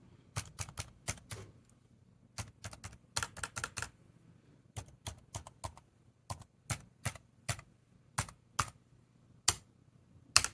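Keys of a Dell Latitude CPi laptop keyboard pressed one at a time in short irregular runs, sharp separate clicks, as the keyboard is tested key by key; the loudest click comes near the end.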